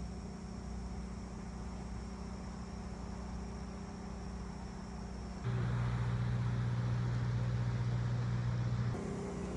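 Steady low mechanical hum of a running engine. It steps up louder about five and a half seconds in and drops back shortly before the end.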